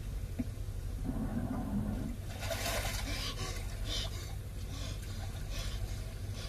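A television drama soundtrack playing in the room: a rush of water-like noise over a steady low hum, with no clear words.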